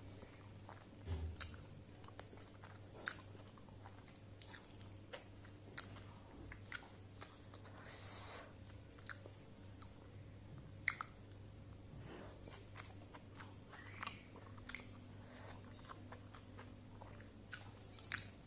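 Close-up mouth sounds of a person biting into and chewing a soft steamed momo dumpling: scattered wet smacks and small clicks throughout, with a brief soft swish near the middle.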